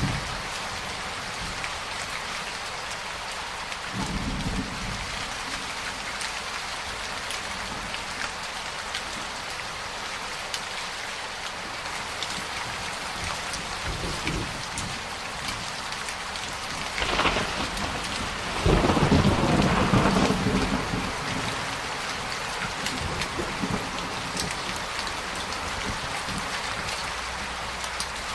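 Steady heavy rain, with thunder rumbling now and then and a louder crack and roll of thunder a little past the middle.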